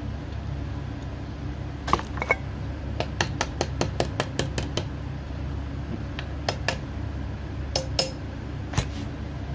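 Light metallic hammer taps: a small hammer tapping a metal ferrule onto a knife handle. Two taps, then a quick run of about ten at some six a second, then a few spaced taps, over a steady low hum.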